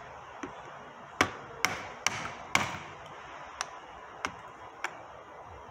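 Hammer tapping the handles of two screwdrivers set against the ends of a snap ring on a Toyota C60 transmission shaft, driving the ring off the shaft. About seven sharp taps: four in quick succession, then three lighter ones spaced further apart.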